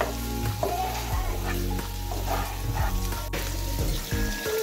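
Chicken liver frying dry in its own released oil in a nonstick pan, sizzling, with repeated strokes of a spatula stirring and scraping through the pieces. Background music with sustained notes plays underneath.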